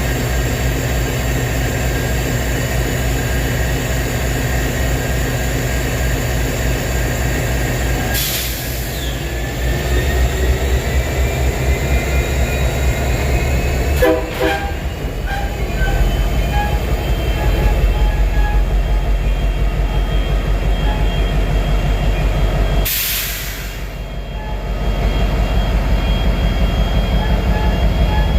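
Diesel locomotive engine running with a steady low throb. From about halfway a bell rings at an even pace, and two short hisses come about a third of the way in and again near the end.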